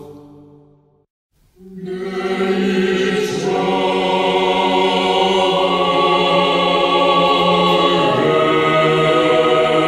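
Choir singing a slow chant in long held chords: one piece fades out in the first second, and after a short silence the next swells in. The chord changes about eight seconds in.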